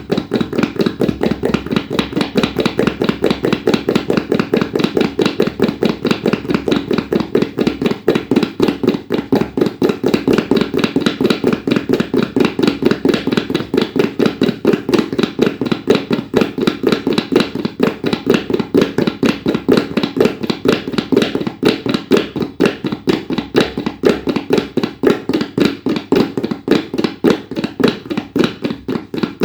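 Tabla played in a fast, even stream of strokes, about five a second, a rela-style pattern meant to imitate the hoofbeats of a running horse.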